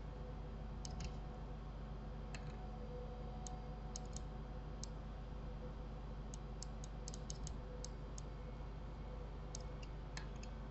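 Computer mouse clicking at irregular intervals, with a quick run of clicks in the middle, over a steady low hum of room or microphone noise.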